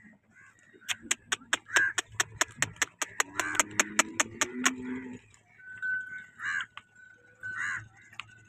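A cow's neck bell clanking rapidly, about five strikes a second for some four seconds, with a cow mooing low near the middle. Crows caw twice near the end.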